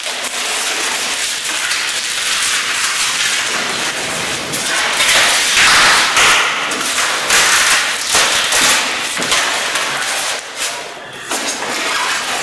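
Unpacking noise: rustling and scraping of the foam packing tray and plastic wrapping as they are handled, with scattered knocks, loudest about five to seven seconds in.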